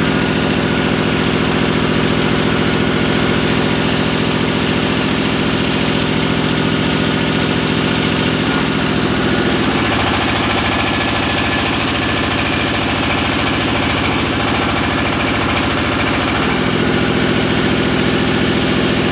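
A large engine running steadily at idle, its tone shifting slightly about ten seconds in and again a few seconds before the end.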